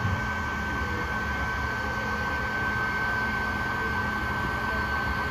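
Steady machine noise: a low rumble under a constant high-pitched whine, unchanging throughout.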